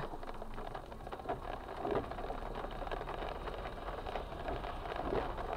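Steady noise inside a car cabin: a car engine running and rain pattering on the car's body and windshield while the car moves slowly.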